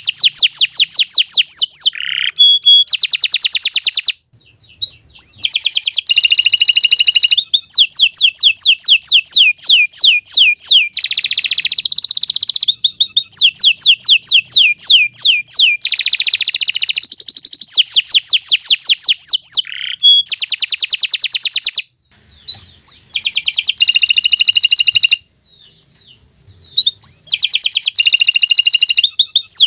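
Domestic canary singing loudly and at length: long phrases of fast, high trills and rolls of rapidly repeated notes, broken by a few short pauses.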